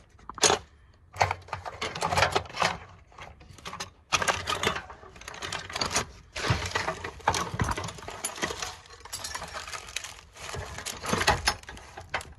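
Metal hand tools clinking and rattling against each other as someone rummages through them looking for a pair of pliers.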